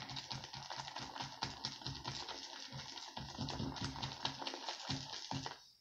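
Shaving brush swirled briskly in a ceramic lathering bowl, whipping Derby shave cream into lather after extra water was added: a dense, rapid wet clicking and squishing that stops suddenly near the end.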